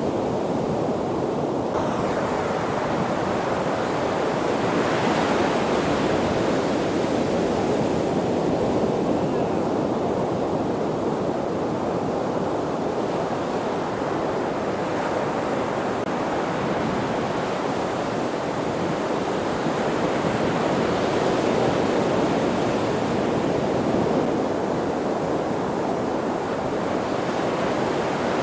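Pacific surf breaking on a sandy beach: a continuous rushing wash of waves that swells and eases as each wave breaks.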